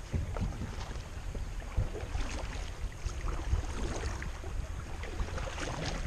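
Wind rumbling on the action-camera microphone over the steady wash of a shallow river around a kayak.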